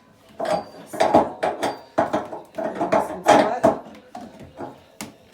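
Metal clinks, knocks and scrapes of a spanner working on a bath tap's fixing nut as the tap is tightened, a cluster of short strikes with brief ringing.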